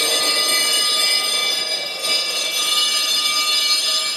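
Bells ringing without a break: a dense, unbroken ringing of many steady high tones, marking the moment of the rite as the petals fall.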